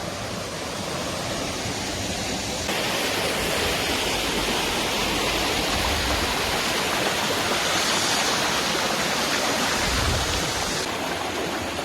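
Mountain stream swollen with rain, water rushing steadily over rocks. It gets louder and brighter from about three seconds in until shortly before the end.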